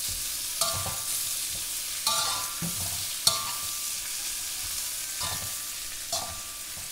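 Sliced bamboo shoots sizzling in oil in a wok while a slotted metal spatula stirs them. The spatula scrapes the wok and strikes it with a short ringing clank about every second or so.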